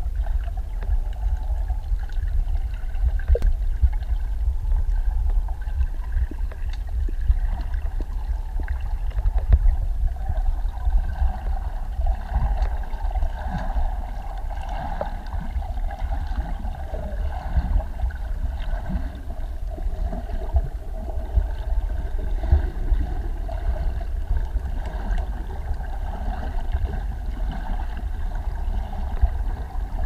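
Underwater sound picked up through an action camera's waterproof housing: a steady, muffled low rumble of moving water with scattered small clicks and crackles.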